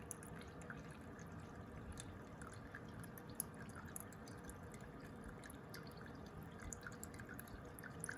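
Gasoline trickling and dripping from a fuel hose into a container as a moped's fuel tank drains: faint, with scattered small drip ticks over a steady trickle.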